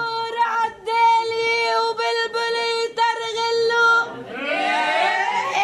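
A woman's singing voice holding long notes at one steady pitch, with short breaks between phrases, then gliding upward about four seconds in.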